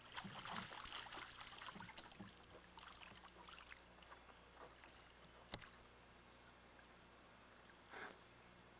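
Near silence: a faint outdoor background with a low steady hum and light rustling in the first few seconds, and one sharp click about five and a half seconds in.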